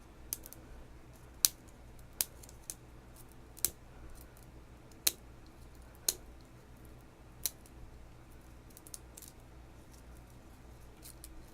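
Plastic wrap on a blind-box capsule being picked at and peeled by hand: scattered sharp clicks and crackles, about one every second, thinning out in the second half.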